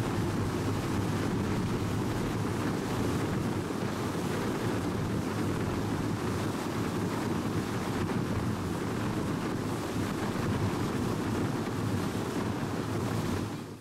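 Steady noise of a fast motorboat under way: the outboard engine, water rushing past the hull, and wind buffeting the microphone. It cuts off abruptly near the end.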